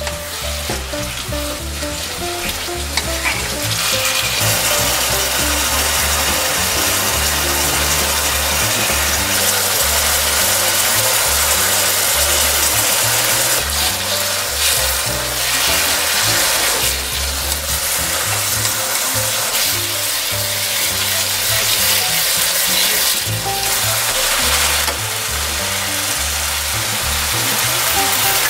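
Kimchi and pork sizzling as they are stir-fried in a nonstick pot, a wooden spatula stirring and scraping through them; the sizzle grows louder about four seconds in.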